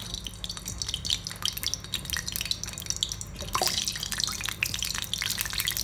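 Cooking oil heating in a metal karahi, crackling with quick small pops that grow denser about three and a half seconds in as the oil gets hot.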